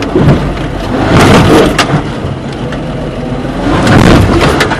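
Off-road vehicle's engine running at low speed, heard from inside the cab, with jolts and rattles as it crawls over rough rock; the bumping grows louder about a second in and again near the end.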